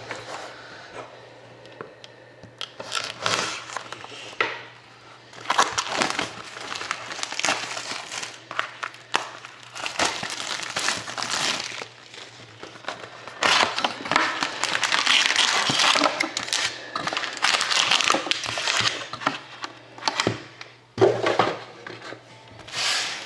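Plastic wrapping on a sealed box of trading cards crinkling and tearing as it is unwrapped and opened, in irregular crackling bursts that come thickest in the middle and then ease off near the end.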